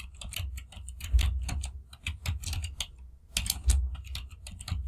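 Typing on a computer keyboard: a quick, irregular run of keystrokes with a brief pause about three seconds in.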